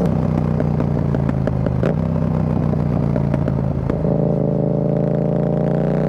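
2023 Yamaha XSR700's 689 cc parallel-twin through an Akrapovic carbon full exhaust with the dB killer removed: the throttle is closed and the exhaust crackles and pops on the overrun for about four seconds. Then the engine pulls again, its note rising steadily.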